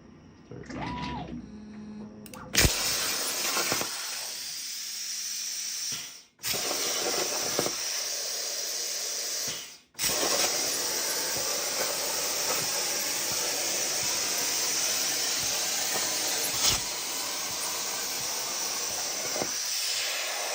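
Hypertherm Powermax45 XP air plasma torch cutting on a CNC table: a loud steady hiss with a high edge, cutting off abruptly twice, near six and ten seconds in, before starting again. Before the arc starts, the gantry's motors give a short whine that rises and falls as the torch moves into position.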